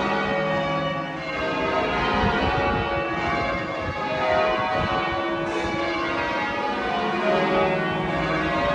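Church bells pealing: many bells struck one after another in quick succession, their ringing tones overlapping continuously.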